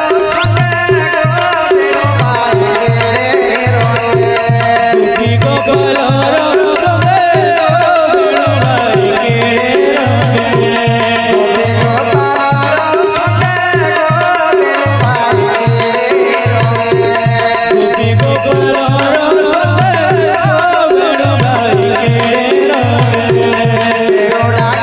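Devotional folk music without singing: a steady, evenly repeating drum rhythm with jingling, rattle-like percussion and a wavering melody line over it.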